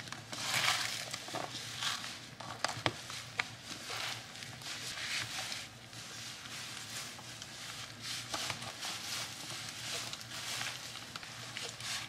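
Raw ground chuck mixed with vegetables and breadcrumbs being kneaded and squished by a gloved hand in a plastic container: irregular wet squishing with scattered light clicks.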